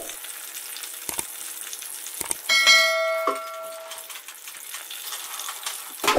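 A bell-like ding from a subscribe-button sound effect rings out about two and a half seconds in and fades over about a second and a half, over the faint steady sizzle of naan frying in oil.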